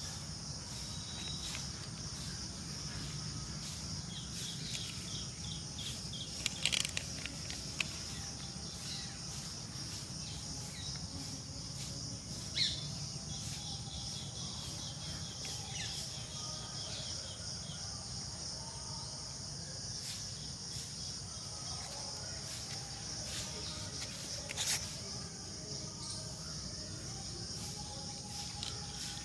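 Outdoor ambience: a steady high insect chirring throughout, with a few faint bird chirps and three or so sharp clicks.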